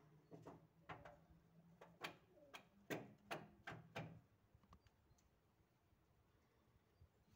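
A squirrel on the windowsill just outside the glass making a run of sharp clicks and taps, about ten in three seconds, some with a short ring. The clicks stop a little after halfway.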